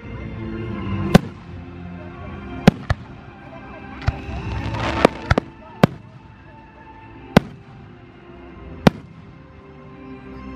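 Aerial fireworks shells bursting, about ten sharp bangs at uneven intervals, with a burst of crackling a little before the middle. Voices and music carry on in the background.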